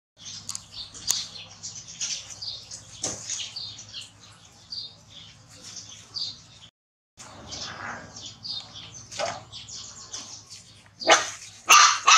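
Puppy whimpering in many short, high-pitched squeaks, with a louder yelp near the end.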